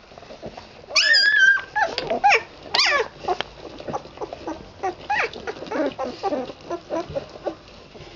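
Newborn red standard poodle puppies squealing and whimpering as they crawl and jostle to nurse. A loud high-pitched cry comes about a second in, then a few more squeals, and after that a run of short squeaks and grunts.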